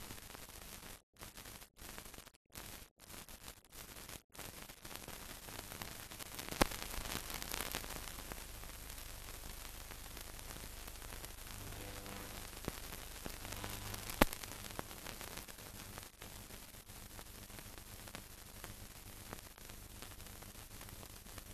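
Hiss of a mute film's blank soundtrack, cutting in and out during the first few seconds and then steady, with two sharp clicks, about six and a half and fourteen seconds in.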